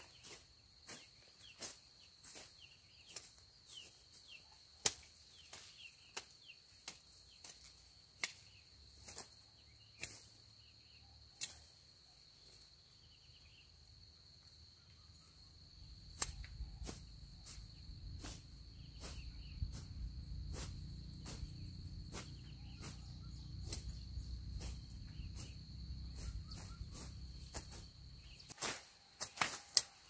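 Sharp clicks and knocks about once a second over a steady high insect drone. About halfway in a low rumble comes up for some twelve seconds, and near the end the clicks come in a quick run.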